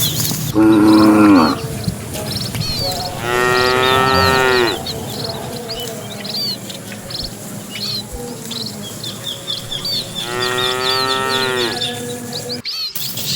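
Cattle mooing: three long moos from the herd, the first lower and louder. Small birds chirp over them the whole time.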